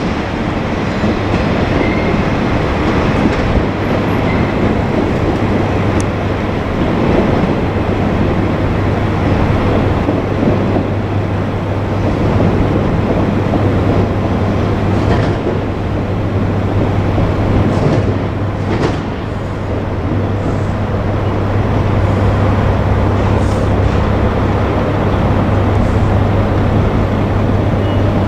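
Diesel railcar of the Ibusuki no Tamatebako limited express (KiHa 47/140 type) running close by: a steady engine drone with a constant low hum under the rumble of wheels on rail, and a few clicks from the wheels near the middle.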